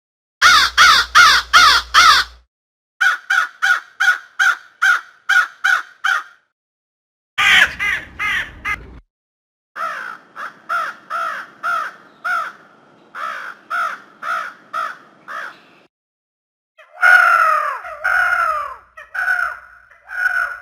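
Crows cawing in several separate recordings strung together: each is a run of short, harsh caws repeated several times a second, with brief silent gaps between the runs.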